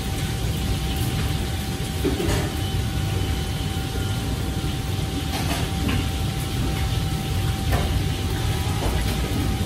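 Steady low roar of a commercial kitchen's extraction hood and wok range, with a faint steady whine. Occasional clinks and knocks of utensils on metal and bowls.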